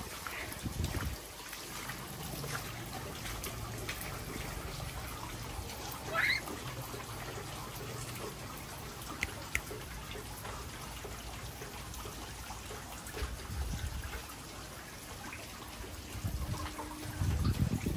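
Floodwater trickling and running steadily, with a short rising chirp about six seconds in.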